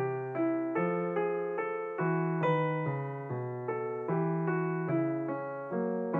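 Background music: a light keyboard tune of evenly paced struck notes, each fading after it is played, over a slowly changing bass line.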